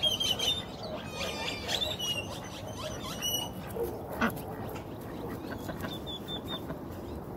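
Ducks quacking, mixed with short high bird chirps, most of them in the first three and a half seconds and a few more around six seconds.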